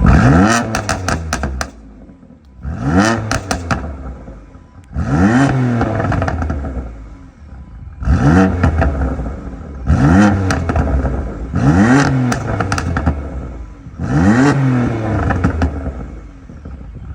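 A 2014 BMW M4's 3.0-litre twin-turbo straight-six is blipped about seven times, every two to three seconds. As each rev falls back on the overrun, the exhaust fires a rattle of pops and crackles, as set by its crackle tuning map.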